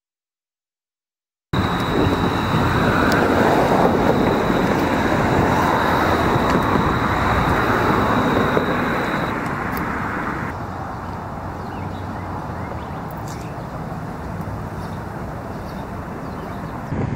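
Dead silence for about a second and a half, then a steady rushing noise cuts in abruptly; it is louder at first and drops somewhat about two-thirds of the way through, with a thin high whine over the first half.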